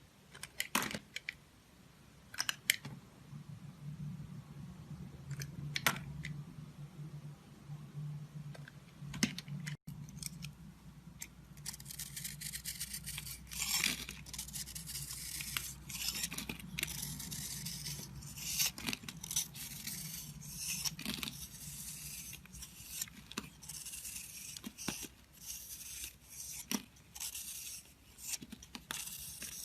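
A blade cutting and scraping a bar of soap: a few separate crisp cuts at first, then, from about ten seconds in, a dense run of rapid crackling and scraping as the soap is shaved. A faint low hum runs underneath.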